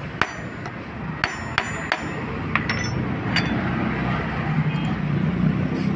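About half a dozen sharp metal knocks with a short ring, spaced irregularly through the first three and a half seconds, as the clutch plate of a car AC compressor and the bolt threaded into its hub are struck to free the rust-stuck plate. A steady low rumble runs underneath.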